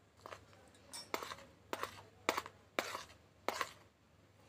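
A plate and the spoons on it clinking and knocking against a steel pan as sliced onions are pushed off the plate into the pan: about six sharp clinks at uneven intervals.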